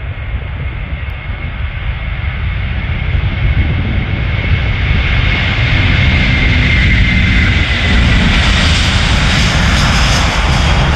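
Delta Airbus A330 twin-engine jet airliner at takeoff power on its takeoff roll, growing steadily louder as it comes closer. A rushing jet roar over a low rumble, with a high fan whine that drops slightly in pitch after the middle as the aircraft passes.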